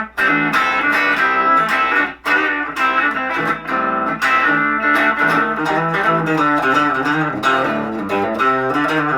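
Guild Aristocrat HH electric guitar being played: a quick run of picked notes and riffs with notes often sounding together.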